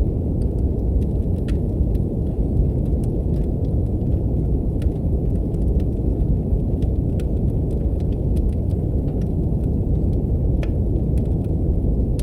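Steady deep brown noise with a wood fire crackling over it: scattered sharp pops and snaps, one of the louder ones near the end.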